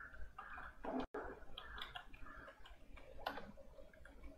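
Faint, scattered clicks of a computer keyboard being typed on.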